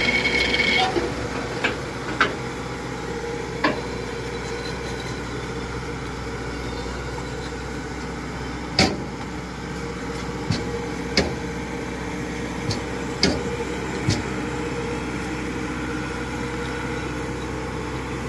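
Kubota DC-105X tracked combine harvester's engine running steadily as the machine crawls up a bank, louder for about the first second. About eight short, sharp knocks or cracks are scattered through it.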